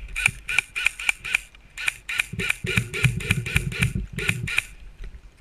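Airsoft electric gun (AEG) firing rapid single shots, about four a second, in two strings: five shots, a short pause, then about eleven more.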